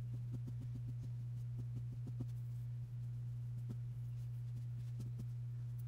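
A steady low hum, with faint soft taps and clicks scattered over it as a glue stick is worked onto small lace daisy appliques.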